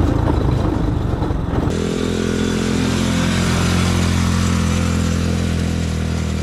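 ATV engine running; about two seconds in it settles into a steady, even drone as it holds a constant speed.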